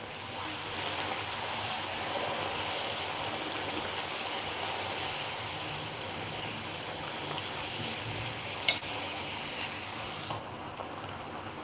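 A whole-wheat puri deep-frying in hot oil in a kadai, the oil sizzling steadily, with a single sharp tap about three-quarters of the way through. The sizzle eases near the end.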